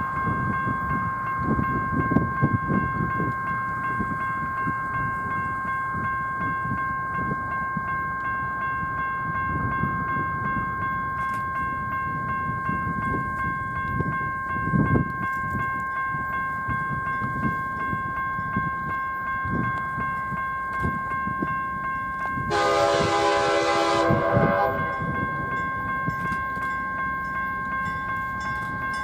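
Approaching freight train rumbling, led by BC Rail GE 'barn' locomotives. About three-quarters of the way in, the lead locomotive sounds its air horn in a single blast of about two seconds. A steady two-note high ringing runs in the background.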